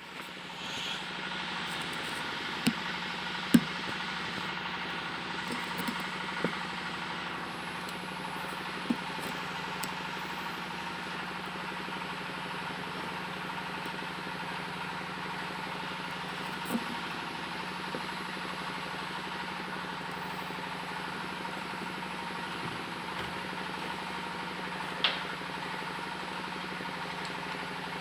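A steady mechanical hum from a running engine or motor, with a few sharp knocks and clicks over it.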